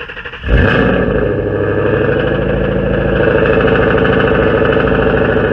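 2011 Mustang GT's 5.0 V8 being cranked by the starter, catching about half a second in with a sudden jump in loudness, then running steadily at idle. It is a start after the battery was reconnected.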